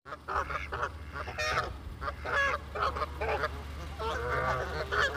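Canada geese honking and squawking in a rapid run of short, overlapping calls as they squabble with each other.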